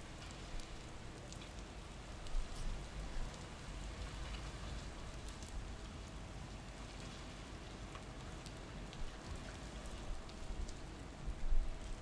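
Water dripping and pattering onto wet surfaces after rain: many scattered small drops over a low steady rumble.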